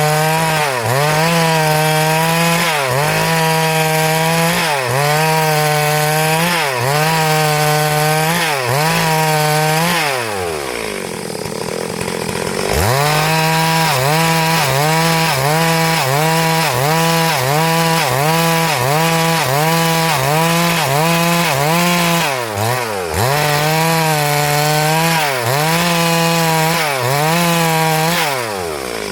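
Stihl MS382 two-stroke chainsaw at high revs ripping through a hardwood log, its pitch dipping and recovering about once a second as the chain bites. About ten seconds in it drops to idle, then revs back up and cuts on before dropping again near the end.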